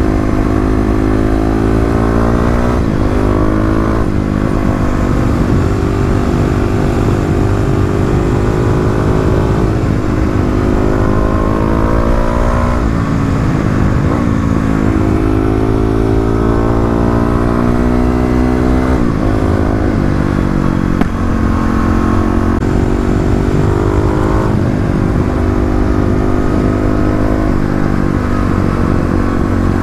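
Kawasaki KLX250 single-cylinder engine bored out to 351cc, breathing through an FMF Megabomb header and Q4 slip-on, revving up and falling back again and again, its pitch climbing for a few seconds and dropping each time.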